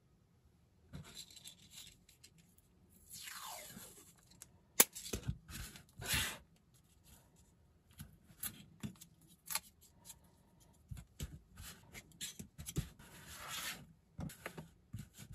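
Masking tape being pulled off its roll in rasping strips and torn, with fingers pressing it onto small 3D-printed plastic parts and the parts clicking and scraping on the table. One long strip near the start falls in pitch as it peels away.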